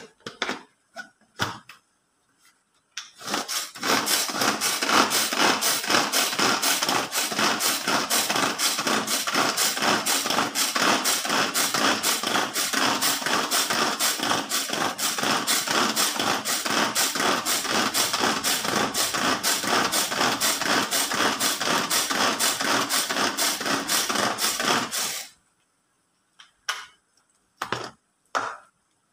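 Hand-pulled mini food chopper worked in quick, even pulls, about two or three a second, its blades rattling round the plastic bowl as they chop crab sticks fine. It starts about three seconds in and stops near the end. A few clicks of handling the lid come before and after.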